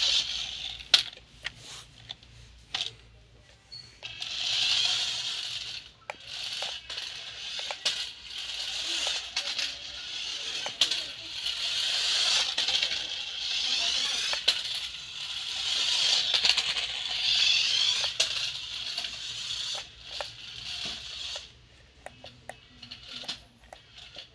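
Small battery-powered RC stunt car driving about on a tiled floor: its electric motors whir in repeated surges as it speeds up and slows, with many sharp clicks and rattles from its plastic wheels and body on the tiles. The whirring dies away near the end, leaving scattered clicks.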